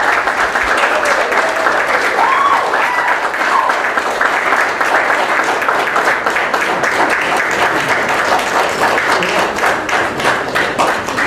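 Crowd of guests applauding: many people clapping steadily, with a few voices calling out in the first few seconds, the clapping breaking into more separate claps near the end. It is welcoming applause for the entrance of a newly married couple.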